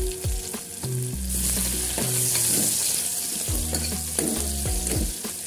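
Sliced onions and green chillies sizzling in hot oil in an aluminium pressure cooker, the hiss swelling for a second or two as they are stirred, over background music with a deep bass beat.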